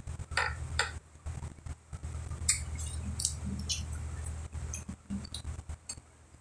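Shrimp being peeled by hand: scattered small cracks and clicks from the shells, over a steady low hum.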